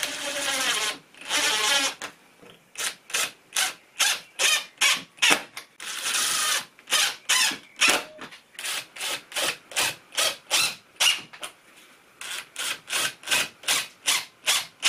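Cordless drill-driver driving 25 mm wood screws to fix battens onto a plywood baseboard. It gives a few longer runs near the start and about six seconds in, then many short trigger bursts, about three a second, as the screws are run home.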